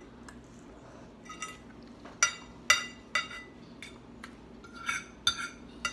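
Metal fork clinking and scraping against a ceramic plate of noodles, with several sharp ringing clinks about half a second apart in the middle and a few more near the end.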